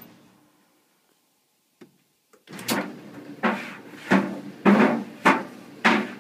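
A phone tumbling inside a running clothes dryer, clunking against the metal drum with a short ringing knock about every two-thirds of a second. The clunks start about two and a half seconds in, after a brief quiet.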